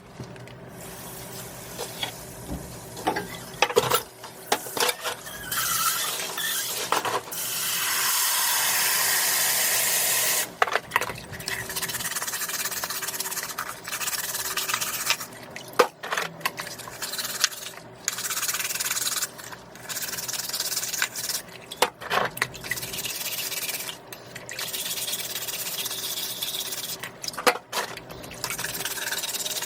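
Scallops being wiped and rubbed clean: wet rubbing and scraping in uneven strokes, broken by short sharp clicks. About a third of the way in there are a few seconds of steady rushing.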